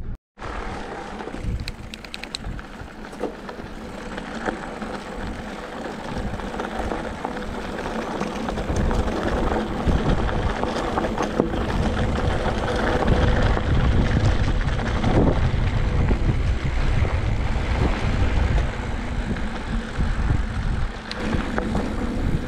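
Wind rushing and buffeting over the action-camera microphone, mixed with the rolling noise of a mountain bike on a wet dirt trail. It gets louder from about eight seconds in.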